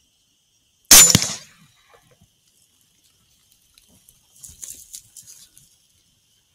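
.457 AirForce Texan LSS big-bore air rifle firing once: a single loud, sharp report about a second in, with a brief tail. About three and a half seconds later comes a fainter spell of crackling lasting about a second.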